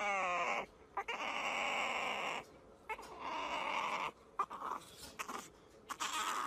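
French bulldog puppy whining and squealing in three bouts, the first opening with a falling whine.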